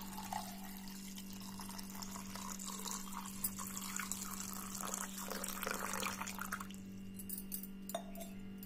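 Water poured in a stream from a glass jug into a small clay pot, splashing onto a cloth bundle of herbs. The pour stops about seven seconds in. A steady low hum lies underneath.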